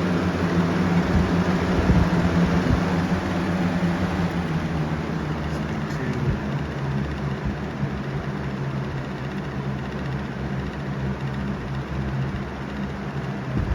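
Lasko Cool Colors box fan running steadily, its motor humming under the rush of air, with a chattering, rubbing noise in it. The owner takes this for something stuck behind the blade hub causing friction, not a motor fault.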